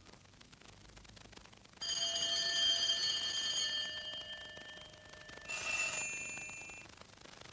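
A bell struck twice. The first strike, about two seconds in, rings on for about three seconds as it fades; the second, near the end, is shorter and dies away within about a second and a half.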